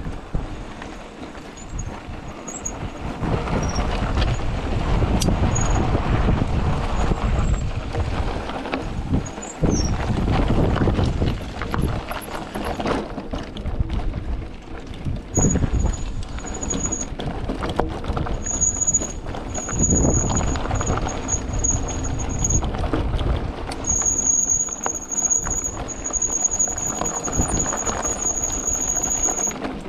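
Mountain bike descending a loose dirt and gravel trail: a continuous rumble of tyres and rattling bike with wind buffeting the microphone. A high-pitched brake squeal comes in repeatedly from about halfway through, in longer stretches near the end as the brakes are dragged on the descent.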